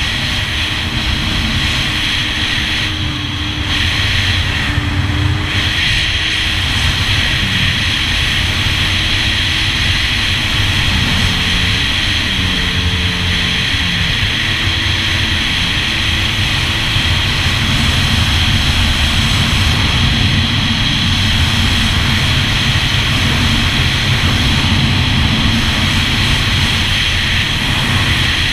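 Yamaha GP1200R personal watercraft's two-stroke three-cylinder engine running under way, its pitch rising and falling several times with the throttle, over a steady rushing noise.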